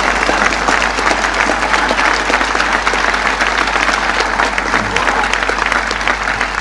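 A large outdoor crowd applauding steadily, with a few voices calling out among the clapping, in response to a line of a speech.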